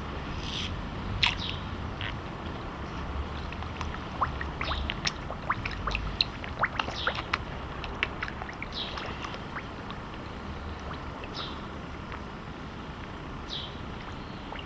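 Carp slurping and gulping food at the water surface: a flurry of sharp wet pops and smacks about four seconds in, easing off after about seven and a half seconds.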